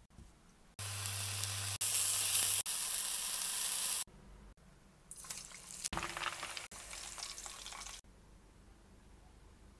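Scallops searing in hot oil in a non-stick frying pan, sizzling loudly for about three seconds with abrupt cuts. About a second later a second, quieter stretch of hissing follows for about three seconds.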